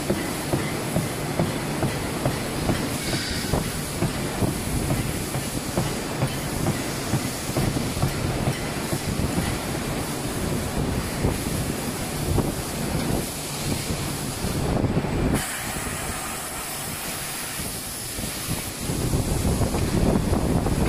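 Rotomoulding factory machinery running: a steady rumble with a dense clatter of knocks and clicks. It drops out briefly about three-quarters of the way through and comes back louder near the end.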